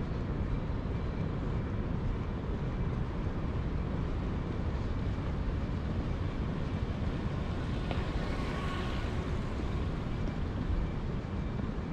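Steady low rumble of outdoor city street noise, with a brief hiss swelling about eight seconds in.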